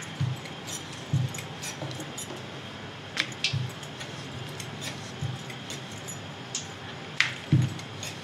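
Rolling pin rolling out samosa dough on a board: soft, irregular thumps every second or so as the pin rolls and shifts, with sharp clicks scattered among them.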